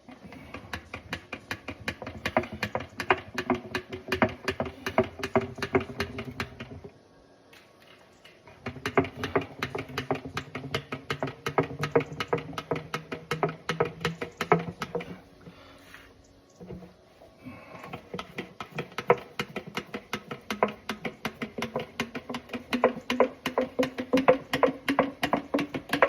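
Hand oil pump being worked to push gear oil into a gearbox: three spells of fast clicking strokes, each a few seconds long, with short pauses between them.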